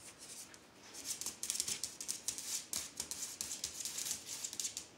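Dog moving about on a bare concrete floor: a quick, dense run of light rattling and clicking that starts about a second in and stops just before the end.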